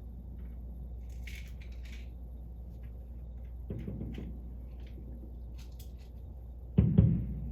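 Fireworks shells bursting: faint crackling about a second in, a dull thump in the middle, then a sudden loud boom that dies away a little before the end.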